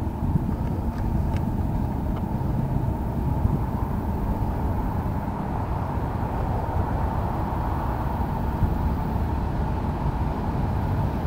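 Diesel-electric freight locomotive approaching at the head of a train of open freight cars: a steady low rumble.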